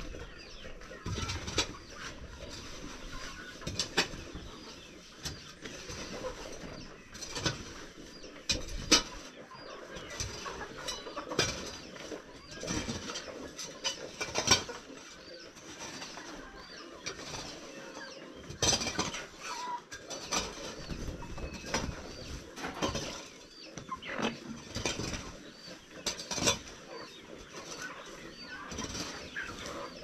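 Dry sawdust poultry litter being scraped and shovelled with hand tools: a continuous rustle with irregular knocks and scrapes of the tool against the floor and walls.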